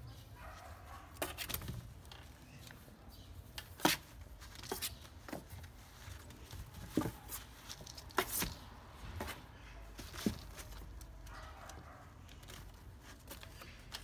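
Black kitten scrabbling in a cardboard box, its claws scratching and scraping the cardboard and paper liner in irregular clicks and scrapes, several of them sharp.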